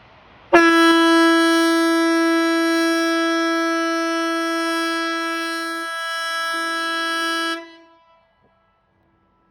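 Swedish civil defence outdoor warning siren ('Hesa Fredrik') sounding one loud, steady-pitched blast of about seven seconds. It starts abruptly about half a second in and wavers briefly before cutting off. A single seven-second blast is one tone of the VMA signal, 'important message to the public', sounded here as a scheduled test.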